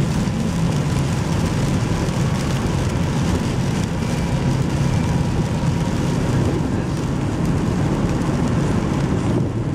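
Steady low rumble of a car driving through heavy rain, heard inside the car: tyres on a wet road and rain on the car.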